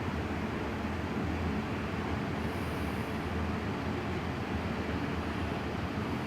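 A young woman snoring in her sleep: low snores over a steady background hiss.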